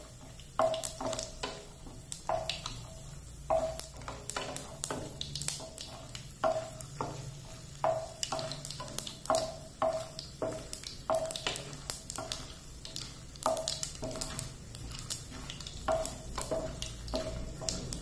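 A spatula stirring chana dal, urad dal and peanuts frying in a little oil in a nonstick pan: repeated short scrapes and taps against the pan, about one or two a second, over a faint sizzle. This is the tempering stage, the dals being lightly fried.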